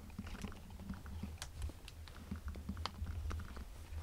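Scattered light clicks and taps, like objects being handled, over a steady low hum.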